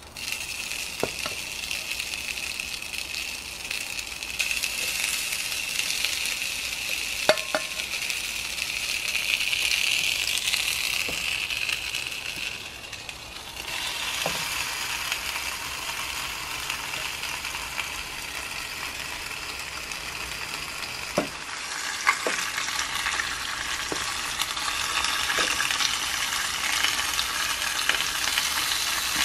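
Beef burger patty sizzling on a George Foreman electric grill, a steady hiss with a few sharp clicks of tongs against the grill. The sizzle changes about halfway through as the lid is closed over the patty, and later takes on the added sizzle of potato slices laid on the hot griddle plate.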